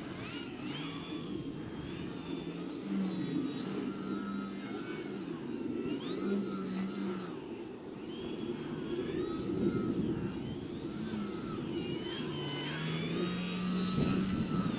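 Twisted Hobbys 32-inch MXS-C electric foam RC plane in flight, its motor and propeller whine rising and falling in pitch as the throttle changes. Gusty wind noise on the microphone runs underneath.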